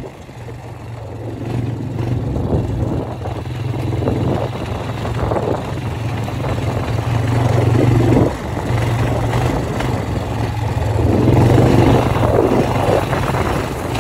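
Quad (ATV) engine running under throttle while the machine drives across rough grass. The engine swells louder, drops back sharply about eight seconds in, then climbs again.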